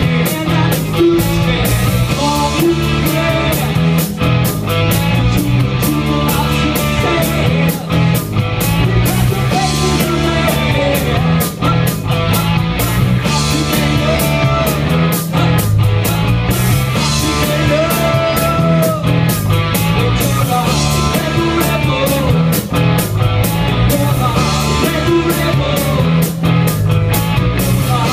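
Live rock band playing loudly: electric guitars and a drum kit driving a steady beat, with a male singer at the microphone.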